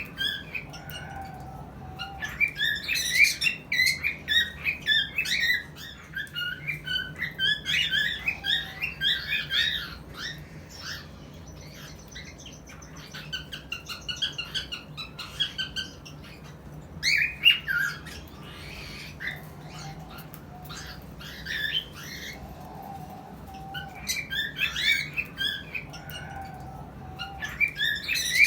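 Cockatiels chirping and squawking in rapid clusters of short, warbling whistle notes. The calls come and go, with a quieter spell in the middle, over a faint steady low hum.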